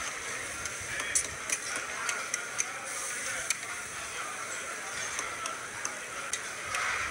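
Karahi of dumba mutton sizzling in an iron wok over a wood fire: a steady hiss with scattered sharp clicks from the metal ladle and the crackling firewood.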